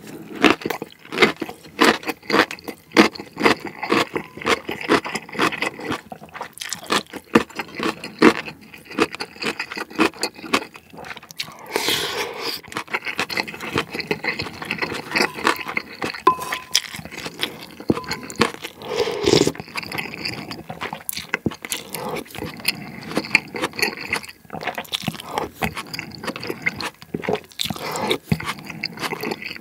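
Close-miked eating of pork gukbap: wet chewing of broth-soaked rice and pork, with the spoon scraping and clicking against the ceramic bowl, in a dense run of irregular clicks and wet sounds.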